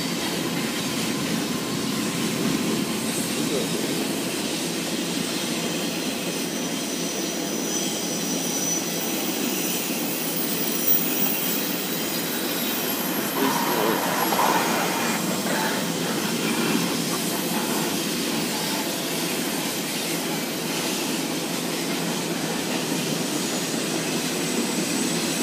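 Double-stack container freight train rolling past on a curve: the steady rumble and clatter of its wheels on the rails, with a faint high wheel squeal now and then.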